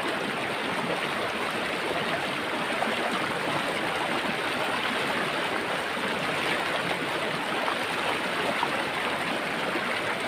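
Shallow, fast-flowing river rushing over rocks and boulders: a steady, even rush of water.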